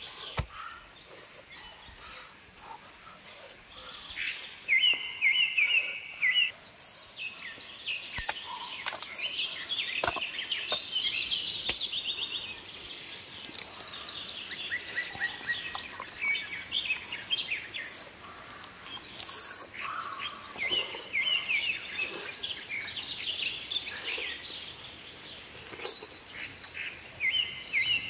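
Wild birds singing, with the same chirping phrase repeated several times and a long, high, buzzing trill twice, over a steady background hiss. Short sharp clicks and knocks come and go throughout.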